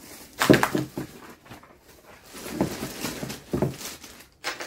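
Clear plastic wrapping crinkling and rustling as it is pulled off a boxed grooming case and stuffed into a bin, in irregular loud bursts, the first about half a second in and more from about two and a half seconds.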